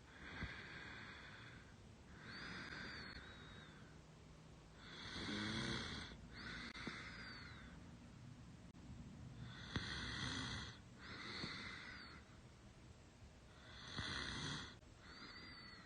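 A sleeping woman snoring through her open mouth: about four slow breaths, each heard as two rasping sounds, one in and one out, with a thin falling whistle on the second sound of several of them.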